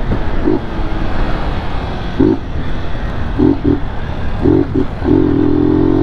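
BMW G 310 GS single-cylinder motorcycle with an aftermarket inverted exhaust, heard while riding under steady wind and road noise. Several short steady-pitched notes come through, and one is held longer near the end.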